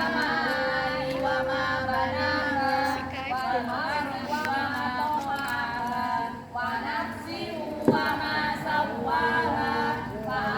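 Several voices singing or chanting together without instruments, the melody bending and sometimes holding long notes. A single sharp click sounds just before the end.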